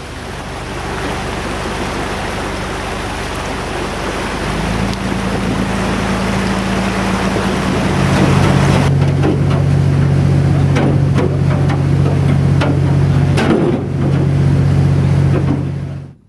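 A boat's hull pushing through broken sea ice, giving a loud, even rushing hiss, under the low steady drone of the boat's engine, which grows louder about halfway through. In the second half, sharp knocks ring out as small pieces of ice strike the hull. The sound cuts off suddenly at the end.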